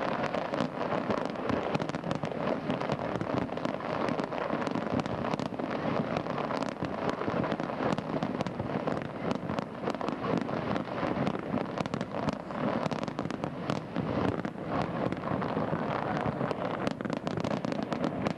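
A continuous fireworks barrage: dense, overlapping crackles and pops that go on without a break.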